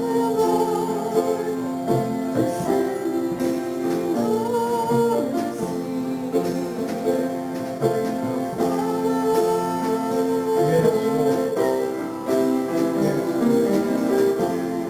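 Slow hymn played on guitar with voices singing along, held notes and chords changing every second or two.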